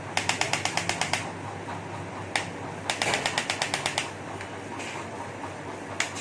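Electric chiropractic adjusting gun firing rapid clicking impulses, about ten a second: a burst of about a second near the start, a single click, then a longer burst around the middle and a single click near the end, over a low steady hum.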